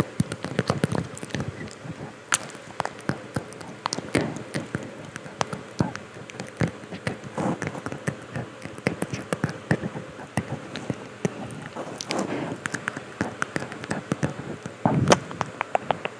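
Inaudible whispering, broken by many sharp little clicks.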